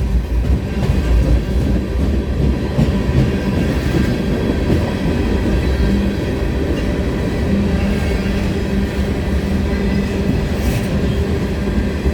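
A train rolling past close by: a steady heavy rumble with a few steady tones and scattered clicks of wheels over the rail joints.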